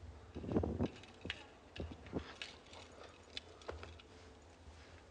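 Scattered light clicks and knocks of people shuffling across a stage and sitting down on a sofa, after a short muffled sound about half a second in.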